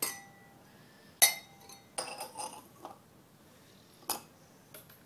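A drinking glass knocking and clinking on a granite countertop: a sharp clink at the start and a louder one about a second in, each with a brief glassy ring, then a quick rattle of small clinks and a last knock near the end.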